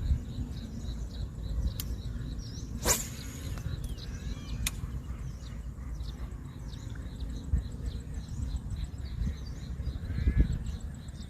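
Rural outdoor ambience: birds calling over a steady low rumble, with a sharp click about three seconds in.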